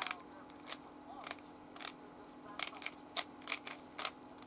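Plastic puzzle cube being twisted by hand: a string of sharp clicks as the layers turn, irregular at first and coming quicker in the last couple of seconds as the solve is finished.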